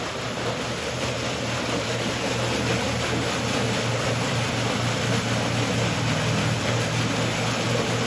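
Water welling up and churning steadily at the centre of a screened fish-hatchery pool, over a steady low hum; the hiker guesses it is aerating the water for the fish.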